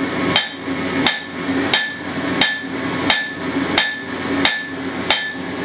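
A 2-pound blacksmith's hammer striking the bare face of an anvil in a slow, even rhythm: eight strikes about two-thirds of a second apart, each with a short bright ring.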